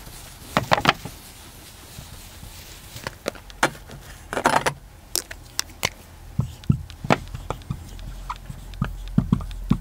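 Whiteboard eraser rubbing across the board in a few short strokes, then a marker pen writing on the whiteboard: a run of brief small taps and scratches as letters are drawn, over a faint low hum.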